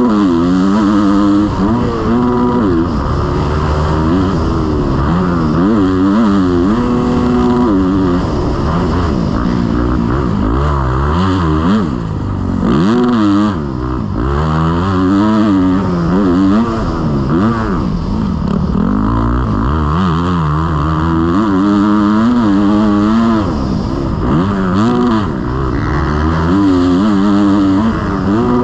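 Motocross bike engine revving hard and backing off again and again, its pitch climbing and dropping every second or two as it accelerates, shifts and slows through the track.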